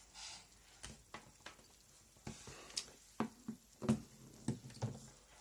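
Scattered faint clicks and light knocks from a phone and a USB Type-C charging cable being handled, with the knocks coming more often and louder in the second half.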